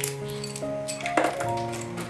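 Instrumental background music with sustained, slowly changing notes, and a single sharp clink a little over a second in.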